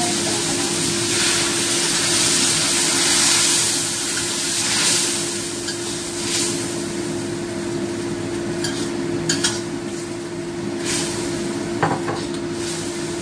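Curry paste sizzling in a hot wok as water is poured in from a mug: a loud hiss in the first few seconds that then dies down. A metal spatula taps and scrapes against the wok a few times near the end, over a steady low hum.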